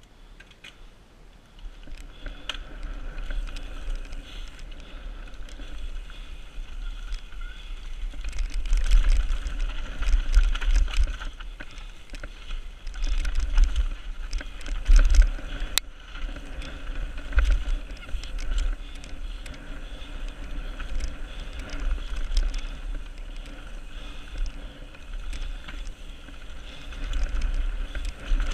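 Transition Patrol mountain bike descending fast on a dirt forest trail, heard from a camera on the bike: heavy low wind buffeting on the microphone, with tyre rumble and frequent rattling and clicking over bumps. It grows louder in rougher stretches and there is a sharp click about sixteen seconds in.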